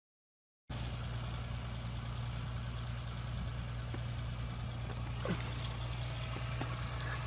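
Silence, then a steady low engine-like hum that starts abruptly just under a second in and runs on evenly, with a few faint clicks.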